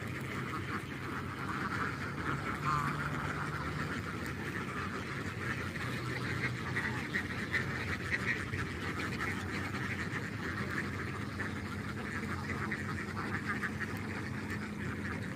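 A large flock of laying ducks quacking and chattering continuously, many birds calling over one another.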